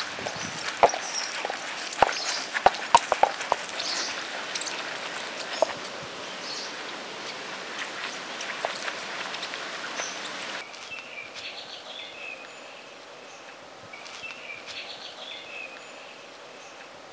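Heavy hand-held grinding stone scraping and knocking against a stone slab as it grinds soaked lentils into vada batter, with a few sharp stone-on-stone knocks in the first few seconds. About ten seconds in, the sound drops abruptly to a quieter background with birds chirping.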